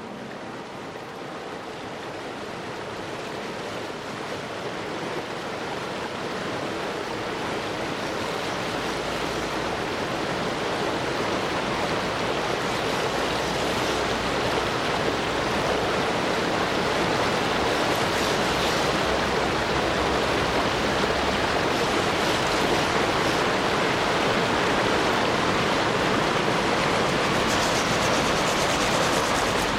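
River water rushing, a steady wash of noise that grows gradually louder over the first half and then holds.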